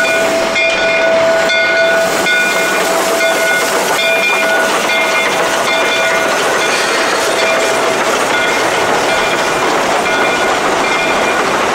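Shay No. 5 geared steam locomotive standing under steam, giving off a steady loud hiss with a few steady high tones, the upper ones cutting in and out about every half second.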